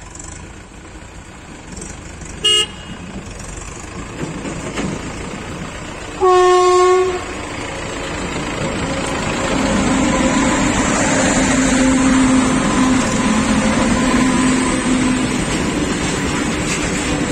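Indian Railways electric locomotive sounding its horn: a brief toot about two and a half seconds in, then a louder blast of about a second around six seconds in. The rumble of the locomotive and its goods train of open wagons then builds as it rolls past, with a steady hum while the locomotive goes by.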